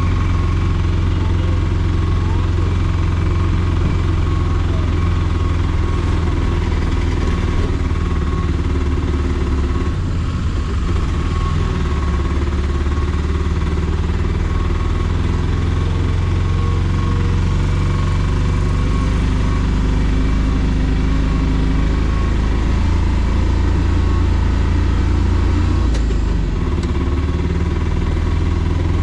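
Three-wheeled auto rickshaw's engine running steadily while driving, heard from the passenger seat in the open cabin, with a low hum that shifts slightly around ten seconds in and again near the end.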